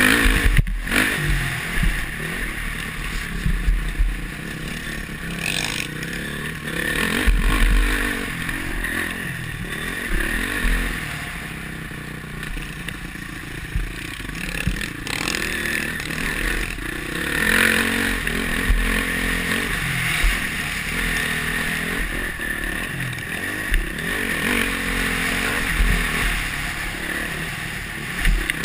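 Honda CRF450R's single-cylinder four-stroke engine revving up and falling back again and again as the dirt bike is ridden hard over a dirt track. Wind buffets the helmet-mounted microphone with low rumbles and thumps.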